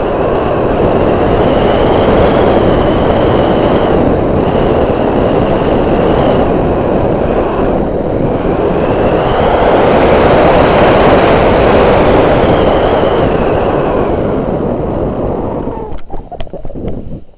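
Vittorazi Easy 100 two-stroke paramotor engine running under wind rush, a thin whine in it rising and falling a few times with the throttle. About sixteen seconds in, the sound drops away on landing, followed by a few sharp clicks.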